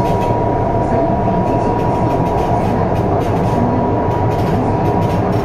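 Foshan Metro Line 3 train running between stations, heard inside the carriage: a steady rumble of wheels and running gear with a steady high tone over it and light irregular clicks.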